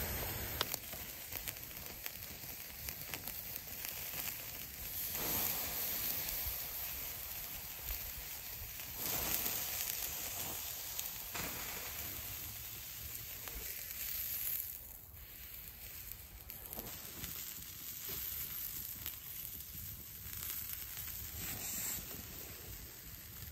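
Hot dogs sizzling on a wire grill basket over campfire coals, a steady hiss with the fire crackling now and then.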